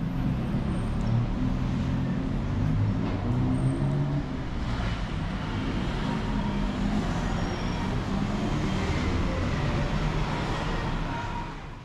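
Road traffic: vehicle engines running with steady road noise, fading out near the end.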